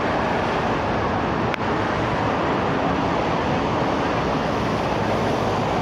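Steady roar of road traffic from a multi-lane city road below, cars and a bus passing, with one brief click about one and a half seconds in.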